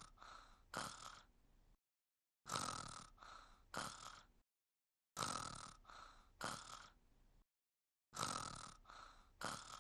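Cartoon-style snoring by an animated character, in cycles about every three seconds. Each cycle is a loud airy breath, a softer breath and another sharp loud one, with dead silence between cycles.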